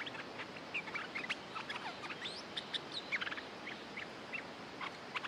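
Stripe-throated bulbuls calling: a rapid, irregular string of short, bubbly chirps. This is territorial calling between a wild bird and a caged decoy bird.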